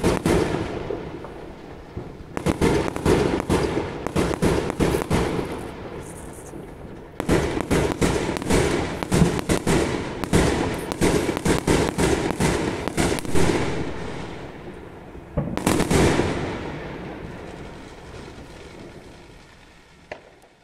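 Aerial fireworks bursting overhead in volleys of sharp cracks and bangs: a quick run early on, a denser crackling run through the middle, then a last burst that dies away slowly.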